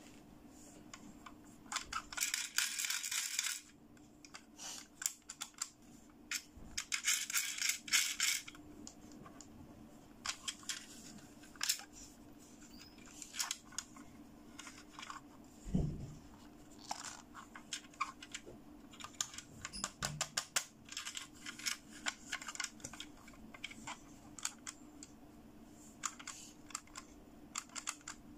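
Pink plastic toy camera being handled and worked: a run of small hard-plastic clicks and taps, with two dense spells of rapid clicking about two and seven seconds in and a single dull knock near the middle.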